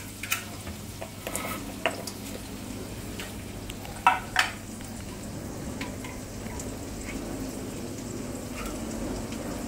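Oysters in their shells sizzling on an electric grill, with scattered pops and crackles as their juices boil and spit, and a louder sputter about four seconds in. It is the stage where the shells heat until they spring open.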